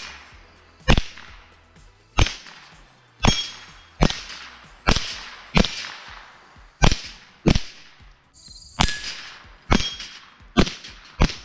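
Calico M-100 .22LR semi-automatic rifle firing about a dozen single shots, roughly one a second, at steel silhouette targets. Some shots are followed by a short metallic ring as a plate is hit and knocked down.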